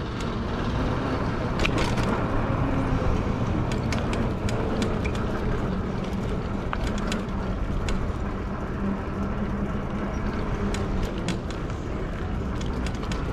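Steady rolling noise of a fat-tire e-bike being ridden, with a faint low hum and scattered sharp clicks.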